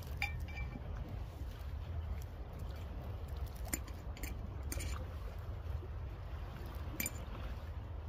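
Small wood fire crackling inside a folding metal box stove, a handful of sharp pops spread through, over a steady low rumble of wind.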